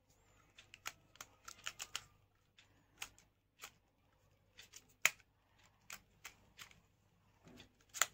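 Plastic clicks and taps from handling a selfie stick's phone clamp head as it is turned upright in line with the stick: a quick run of small clicks in the first two seconds, scattered ones after, and two sharper clicks about five seconds in and near the end.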